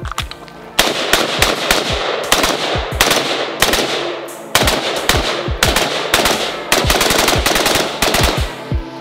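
Fast strings of rifle shots from a Franklin Armory AR-15 in 5.56 NATO fitted with a binary trigger, with background music underneath.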